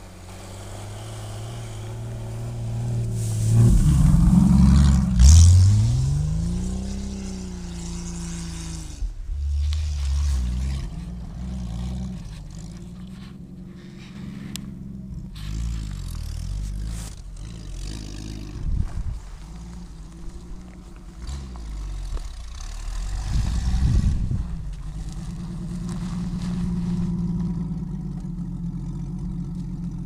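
Jeep XJ Cherokee engine revving as it pushes through deep snow, the pitch climbing steeply about four seconds in and then falling back. The engine keeps running at varying revs, with another burst a little after twenty seconds.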